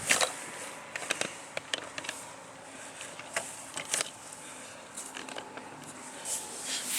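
Hand digging in garden soil: irregular scrapes, crunches and clicks of earth being worked, the loudest right at the start.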